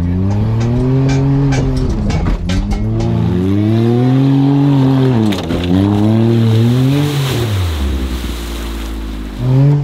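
Lifted Smart Fortwo's small three-cylinder engine revving up and down about four times in a row as the car struggles in mud, then dropping back to a low steady note before one more rev near the end. The car is stuck in the mud.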